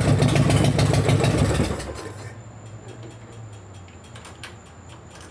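Harley-Davidson V-twin motorcycle engine running loud, then dropping off sharply a little under two seconds in, after which a much quieter low hum and an even ticking carry on.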